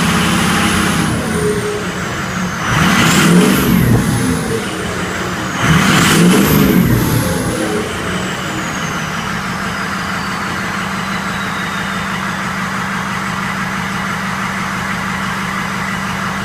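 Ford 6.0 Powerstroke V8 turbo-diesel with its catalytic converter and muffler removed, idling and revved briefly twice, about three and six seconds in. The stock turbo whistles, rising in pitch with each rev and winding slowly down afterwards.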